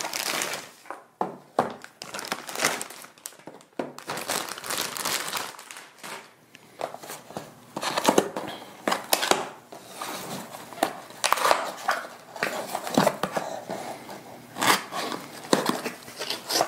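A clear plastic shipping bag crinkling as it is pulled off two cardboard product boxes, then the boxes being handled and a box flap opened. The sound comes in irregular rustling bursts with a few sharp clicks and taps.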